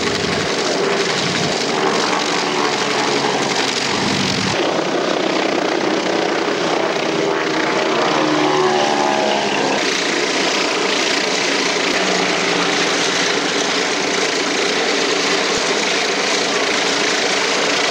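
Vintage radial-engined propeller warbirds running on the ground, a loud steady engine and propeller noise that changes character abruptly about four and a half seconds in.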